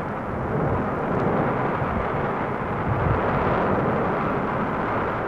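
A volcanic eruption rumbling: a continuous, dense, low noise without distinct separate blasts.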